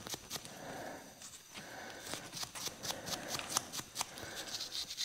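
A toothbrush scrubbing a small metal brake-pad anti-rattle clip: a run of quick, irregular, faint scratchy strokes.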